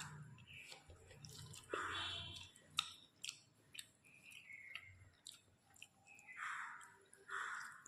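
A person chewing food: soft, wet mouth sounds coming in short bursts every second or two, with a few sharp clicks in between.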